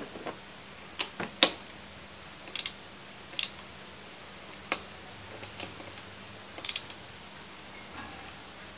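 Ratchet wrench and socket clicking and clinking on metal while the bolts of a cam chain tensioner are tightened on a Honda Vario scooter engine: a dozen or so sharp, irregular clicks, a few in quick pairs.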